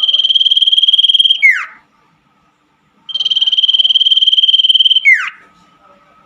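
Common iora (cipoh) giving its long trilled call: a rapid, even, high trill held for about two seconds that ends in a quick downward slur, given twice with a short pause between.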